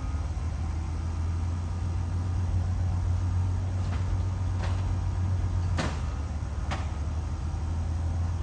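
Brill interurban car 120 moving slowly with a coupled Whitcomb diesel locomotive: a steady low drone, with a few sharp metallic clanks at uneven intervals from the halfway point on.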